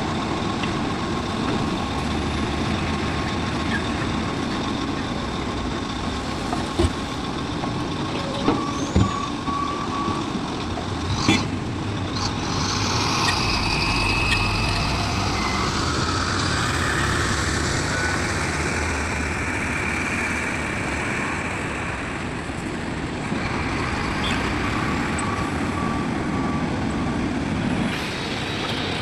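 Heavy diesel machinery working: an excavator loading a dump truck, engines running steadily and growing louder for a while mid-way. A few sharp knocks come between about seven and eleven seconds in.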